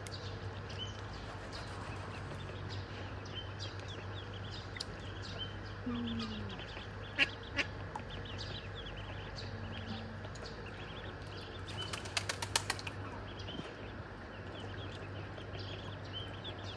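Ducklings peeping, many short high calls repeating throughout over a steady low hum, with a falling lower call about six seconds in and a quick run of sharp clicks or taps about twelve seconds in.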